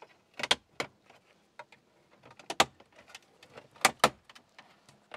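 Plastic trim clips popping and plastic trim tools clicking as the centre dash fascia around an Isuzu D-Max's infotainment screen is pried away: a series of sharp, separate clicks and snaps, the loudest a pair about four seconds in.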